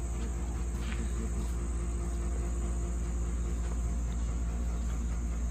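Hot tub pump running with a steady low hum, under a steady high-pitched hiss.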